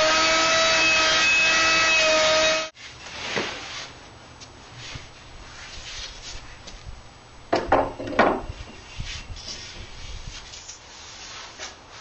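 Electric router with a large table-edge bit running steadily as it profiles the edge of a glued-up wooden panel, cutting off suddenly a little under three seconds in. Then quieter wooden knocks and scrapes as the heavy desktop is handled and set onto its frame, with a cluster of knocks about eight seconds in.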